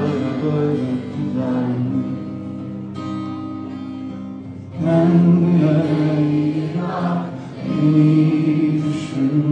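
Opening of a song: music with singing over instruments, growing louder about five seconds in.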